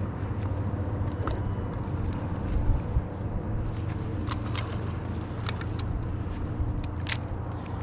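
Boat motor running steadily as a low hum, with scattered light clicks and taps over it.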